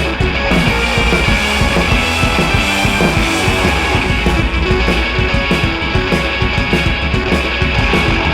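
Background rock music with electric guitars and a steady drum beat.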